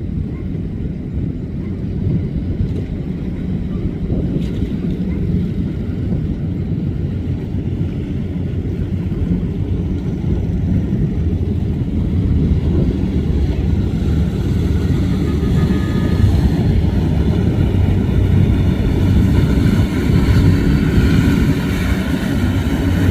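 High-powered speedboat engines running at speed with a deep, steady drone. It grows louder over the second half as a higher engine note comes in.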